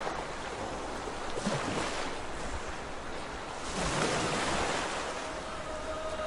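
Sea surf washing onto a sandy beach, a steady rush that swells louder twice, once about a second and a half in and again around four seconds.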